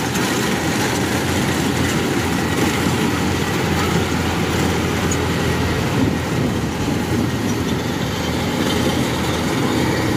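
Kubota rice combine harvester running steadily under load, engine and threshing gear droning together as it slowly cuts lodged, waterlogged rice.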